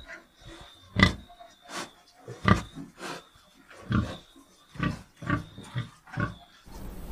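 A pig grunting: a string of about nine short, loud grunts, one every half second to second, that stops shortly before the end.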